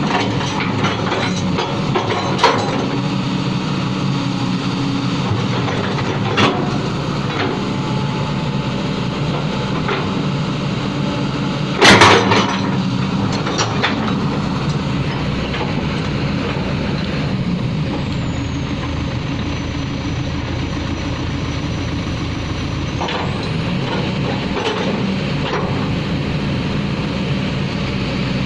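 Backhoe loader's diesel engine running steadily, with a few short knocks and one loud knock about twelve seconds in.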